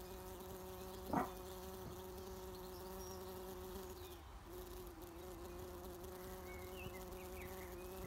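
Tree bumblebees fanning their wings in a bird-box nest: a steady buzzing hum that cools the nest for the queen and her brood. A short, louder rising sound breaks in about a second in.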